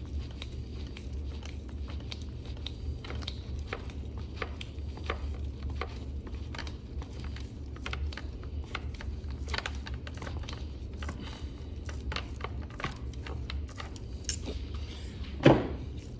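Hand screwdriver twisting small flat-head screws into a motor mount: scattered light clicks and scrapes of the screw and driver tip, over a steady low hum. A single louder knock comes near the end.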